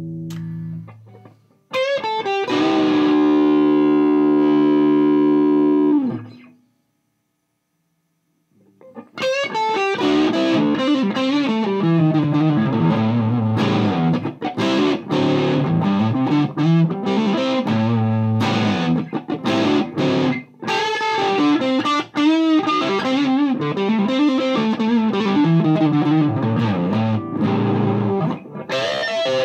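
Electric guitar through a Mesa Boogie Dual Rectifier amp on its high-gain third channel, a Gibson Les Paul played into a Marshall 1960A 4x12 cabinet. A chord rings out, a held distorted chord stops about six seconds in, and after a short silence comes a long stretch of distorted riffing with chugging notes.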